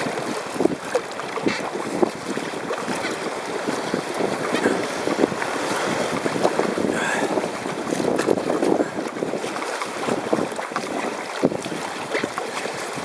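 Fast-flowing river water rushing around a paddled boat, with irregular paddle splashes and knocks, and wind buffeting the microphone.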